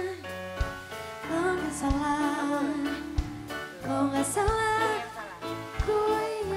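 A young woman singing a slow pop melody into a handheld microphone, holding long notes, over musical accompaniment with low bass notes and a low beat about every second and a quarter.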